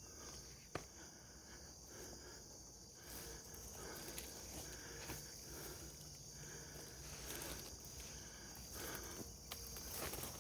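Insects chirring steadily in a high, unbroken drone, with faint rustling and one sharp click about a second in.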